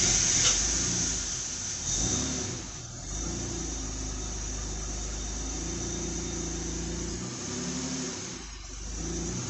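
Ford EL Falcon six-cylinder engine just started on LPG, louder for the first moment, then settling into a steady idle whose note shifts slightly about seven seconds in.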